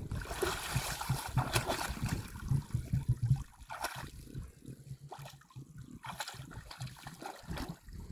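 Muddy puddle water splashing and sloshing as emus wallow and shuffle in it, in irregular bursts that are busiest in the first half, over a low rumble.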